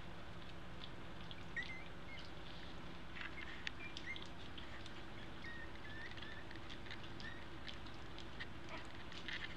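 Faint, short high squeaks from two-week-old American Eskimo puppies, with scattered light ticks and scratches of small paws and claws, over a steady low hum.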